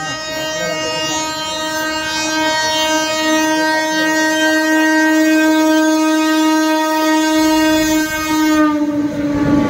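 Air horn of an electric locomotive on a passing train, sounding one long, loud, steady blast; its pitch drops slightly near the end as the locomotive goes by alongside.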